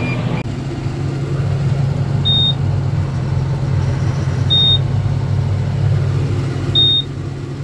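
Tractor engine running steadily with the just-unplugged hay baler being restarted, the drone holding even. A short high electronic warning beep repeats about every two seconds.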